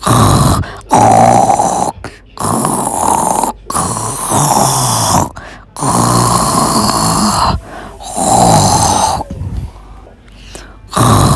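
Loud snoring in long drawn snores, about six of them, each a second or so long with short breaks between.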